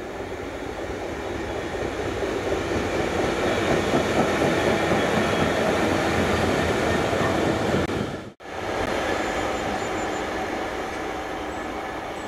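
Two coupled Class 66 diesel-electric locomotives running past as light engines, their two-stroke V12 diesel engines growing louder to a peak as they pass. About eight seconds in the sound cuts off abruptly and another pair of Class 66 locomotives is heard running, quieter.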